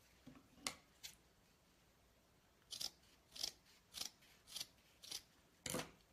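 Scissors snipping through burlap ribbon to cut a dovetail end: two light clicks, then six crisp snips about half a second apart from about three seconds in.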